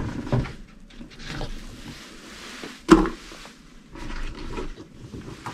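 Diced raw potatoes being tipped off a wooden cutting board into an Instant Pot's stainless-steel inner pot: quiet scraping and handling, with a single knock about three seconds in.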